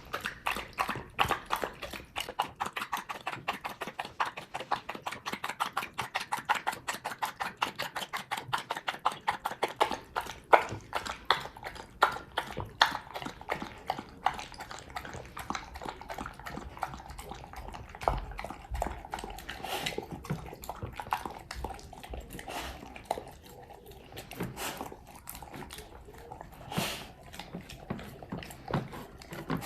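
A dog eating from its bowl: a fast, even run of wet mouth clicks about four or five times a second, slowing into scattered, irregular clicks and knocks in the second half.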